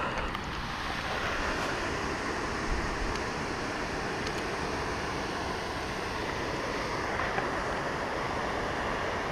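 Steady rushing wind noise buffeting the microphone, with a fluctuating low rumble.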